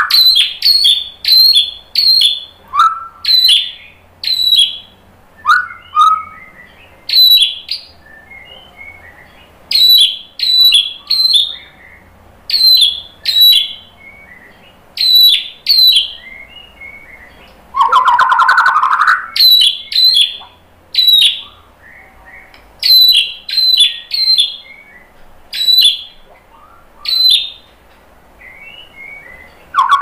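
White-rumped shama singing: a run of short, sharp, loud whistled notes, often about two a second, broken by brief pauses. About 18 seconds in comes a longer, fuller warbled phrase.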